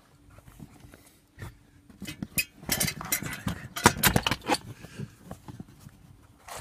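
Handling noise in a car's passenger footwell: rustling and scraping with a quick run of light clicks and knocks, busiest through the middle few seconds, as someone squeezes in under the glovebox against the carpet and plastic trim.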